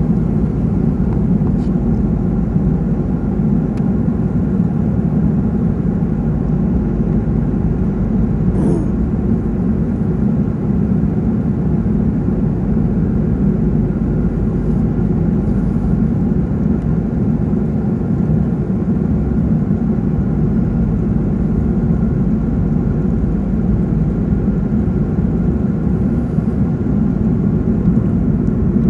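Aircraft engines droning steadily, a loud even hum with a few steady tones running through it.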